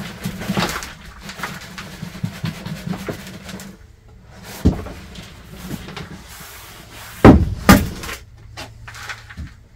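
Pre-moistened compost sliding and rustling as it is tipped from a black plastic tub into a plastic bowl planter, with a sharp knock midway and two loud heavy thumps about seven seconds in as the tub is handled and set down.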